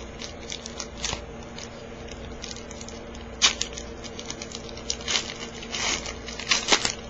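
Trading-card pack wrapper crinkling and tearing as it is opened and handled, in several short crackly bursts over a steady low hum.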